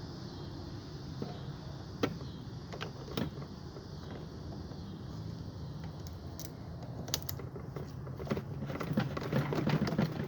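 Scattered light clicks and taps of hand tools and loose metal parts being handled while an ice maker is taken apart, growing into a quick run of clicks near the end. A steady low hum runs underneath.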